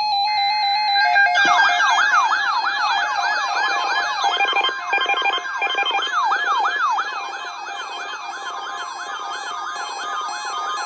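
Emergency alert broadcast tones. About a second of buzzing data tones, then an electronic siren that sweeps up and down in pitch about two or three times a second, loudest at the start. It serves as the attention signal ahead of a tornado watch message.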